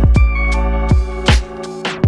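Electronic background music with a heavy bass line and sharp drum hits; the bass drops away about a second and a half in.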